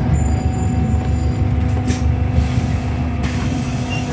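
Volvo B5LH hybrid bus driving along, heard inside the passenger cabin: a steady low drivetrain rumble with a steady hum. A thin high whine runs through about the first second and a half, and a short hiss comes about two and a half seconds in.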